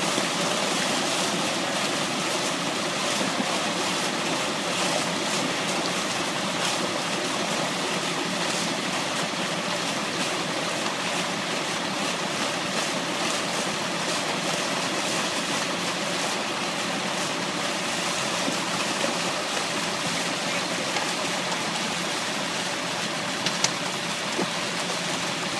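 Steady rush of water gushing from a fish-stocking truck's large discharge pipe and splashing into a lake as live trout are flushed out, with a low steady hum of the truck's engine beneath it. A couple of brief clicks near the end.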